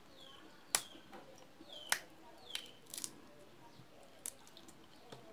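Boiled peanut shells being split open by hand: a handful of sharp cracks and snaps, the loudest about a second in and about two seconds in.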